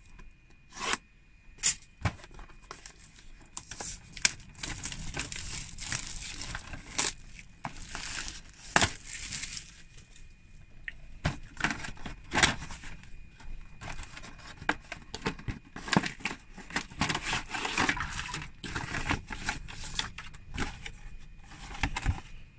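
Packaging on a cardboard box of plastic miniatures being torn open and crumpled, then the box handled and stacked plastic sprues lifted out: irregular tearing and crinkling with scattered sharp clicks and knocks.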